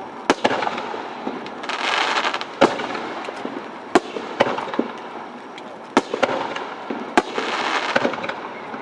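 Aerial fireworks shells bursting: a sharp bang every second or two, with stretches of crackling hiss between the bangs.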